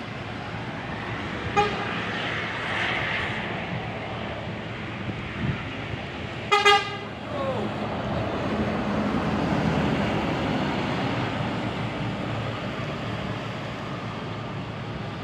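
Two short blasts of a bus horn about five seconds apart, the second louder, over the steady rumble of bus engines and terminal traffic. The engine noise swells for a few seconds after the second blast.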